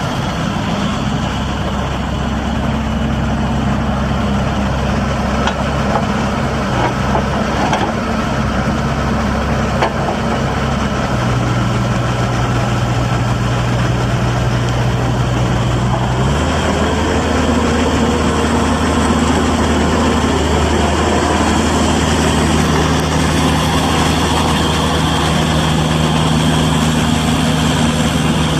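Bobcat E42 mini excavator's diesel engine running steadily while the machine turns and swings its boom. The engine note shifts in pitch about eleven seconds in and again about sixteen seconds in, and is a little louder from then on.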